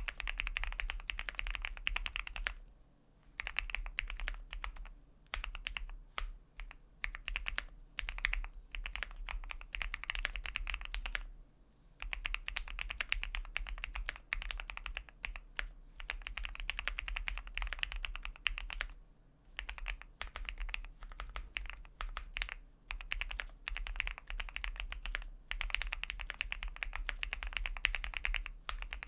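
Typing on a QK75 mechanical keyboard with a polycarbonate plate, lubed Gateron Milky Yellow linear switches and GMK keycaps: quick runs of keystrokes broken by a few short pauses.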